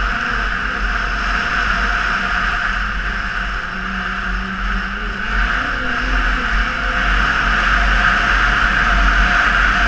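Snowmobile engine and track running steadily at riding speed, heard from a helmet-mounted camera with wind rumble on the microphone. It gets a little louder about seven seconds in.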